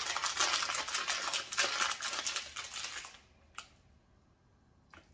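Sesame seeds rattling in a shaker container as they are shaken out, a fast dense rattle for about three seconds that then stops, followed by two single clicks.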